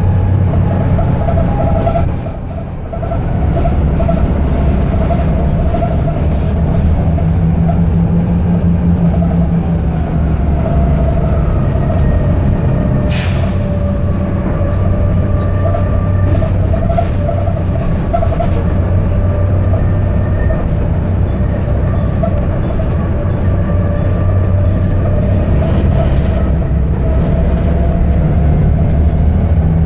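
Inside a moving Metroline VPL-class London bus: the engine and drivetrain run with a steady low drone and a whine above it. The sound dips briefly about two seconds in, and there is one sharp click about 13 seconds in.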